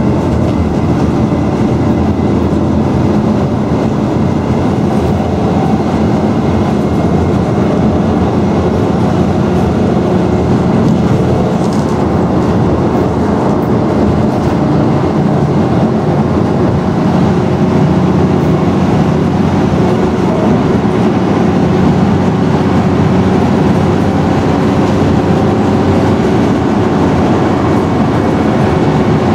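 Scania N113DRB double-decker bus under way, heard on board: its diesel engine and drivetrain running with a low hum and steady road noise, unbroken throughout.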